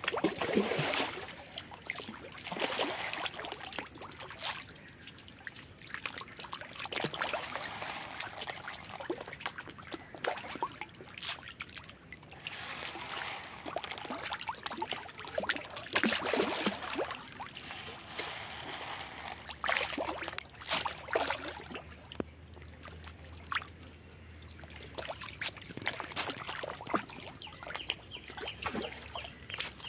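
Fish splashing and slurping at the water surface as they gulp floating feed pellets, in irregular splashes, some louder than others.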